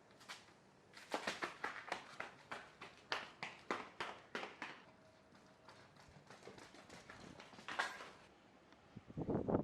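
A quick, irregular run of light taps, about three a second for several seconds, then a few fainter ones.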